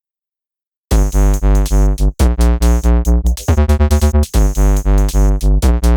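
Electronic dance music with a pounding synthesizer bass beat, starting about a second in after silence.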